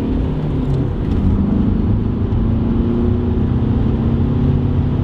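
Audi A4 2.0 TDI four-cylinder diesel, its swirl flaps removed, pulling hard in second gear, heard from inside the cabin. The engine note breaks up briefly about a second in, then climbs steadily again; the driver says it is still slightly hesitating.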